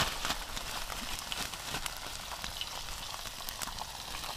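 Floured cod heads frying in hot vegetable oil and salt-pork fat in a cast iron pan: a steady sizzle with many small scattered pops.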